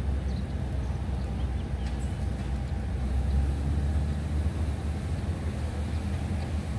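Diesel railcar train pulling slowly out of the station with its engine running, a steady low drone.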